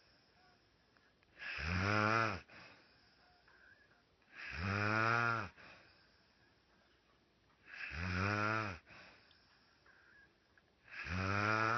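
A woman snoring in her sleep: four long, rasping snores about three seconds apart, each lasting about a second, with quiet breathing in between.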